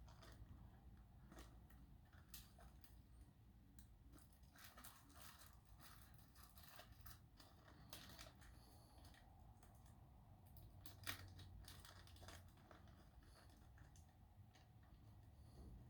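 Faint scattered clicks and rustling of small brass lock pins and a plastic pin bag being handled during a rekey, with one sharper click about eleven seconds in.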